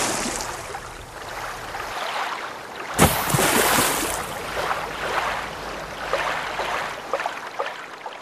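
Rushing, splashing water in surges. A new surge starts suddenly about three seconds in and slowly dies down.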